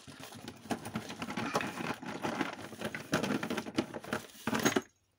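A hand rummaging through a pile of small hard plastic toy figures (Littlest Pet Shop), a dense irregular clatter and clicking that stops abruptly near the end.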